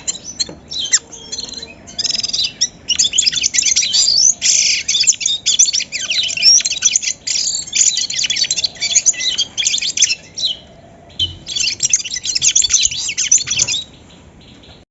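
A chorus of bramblings, many birds chirping and singing at once in dense, overlapping bursts. There is a short lull about ten seconds in, and the chorus stops shortly before the end.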